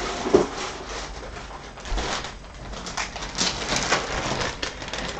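Rustling, clicks and knocks of objects being handled and moved about by hand, with a short low tone just after it begins.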